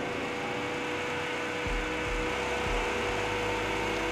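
Transmission dyno spinning a 47RE automatic transmission in reverse: a steady mechanical hum with a constant tone running through it. It grows a little louder about two seconds in as the dyno is run up toward about 2,000 rpm.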